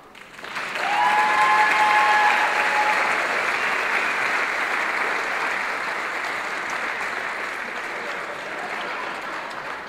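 Audience applauding in a large hall. The applause swells quickly about half a second in and then slowly tapers off, with a held high tone over it in the first few seconds.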